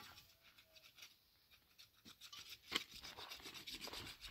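Faint, rapid scraping strokes, with one sharper click near the middle.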